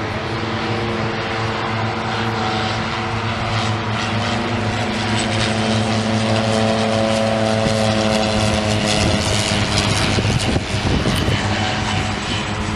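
Propeller aircraft flying low past overhead: a steady engine drone that grows louder, dips slightly in pitch as it passes about two-thirds of the way through, then eases off.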